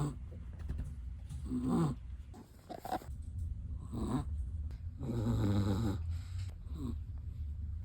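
Chihuahua snoring in its sleep: short snores about every two seconds, with a longer one about five seconds in.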